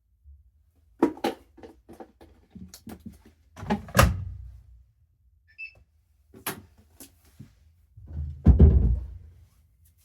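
Irregular clicks and knocks of handling at a Bosch Series 6 washing machine, with two heavier thuds about four seconds in and near the end. A single short electronic beep sounds midway.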